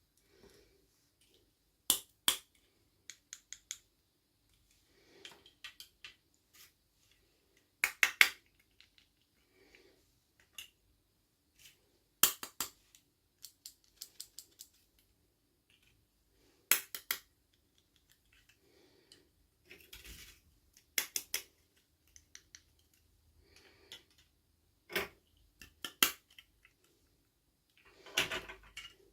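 Sharp plastic clicks, snaps and light rustles of small toy packaging and pieces being handled and opened, coming irregularly, often in pairs.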